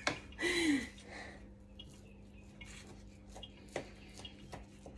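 A knife scoring a tray of pressed banana-and-oat bar mixture, with faint scrapes and a few light taps of the blade against the baking tin. A brief hummed voice sound comes near the start.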